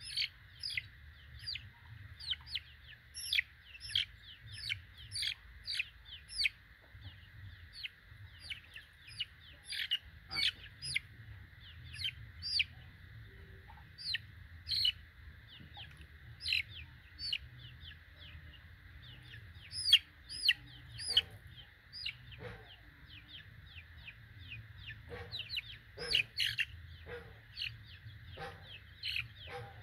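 24-day-old Bangkok gamefowl chicks peeping over and over: short, high calls, each falling in pitch, about one or two a second. The chick is being held and washed with water.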